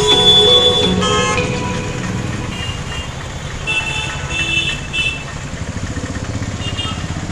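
Road traffic: vehicle engines running, with horns honking in the first second and several short horn toots about four seconds in.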